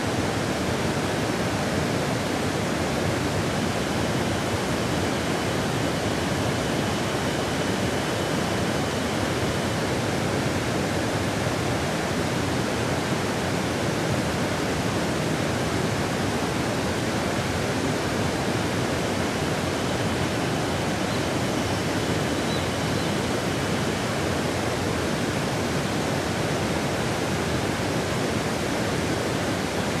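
Steady rushing of a wide curtain waterfall, Fukiware Falls, pouring over a long rock ledge into a gorge at fairly low flow.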